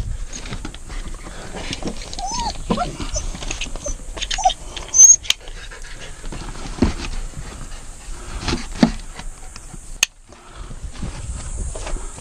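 Hunting dogs giving short, scattered cries that rise and fall in pitch, the loudest about four to five seconds in, over rustling and clicking.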